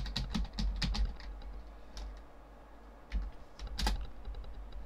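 Typing on a computer keyboard: a quick run of keystrokes, then a few single key presses spaced out, as a web address is typed into a browser and the page is called up.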